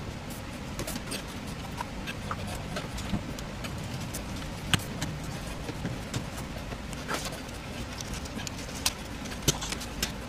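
Scattered light clicks and knocks of PVC drain fittings and a hand tool being handled and fitted, over a steady low rumble.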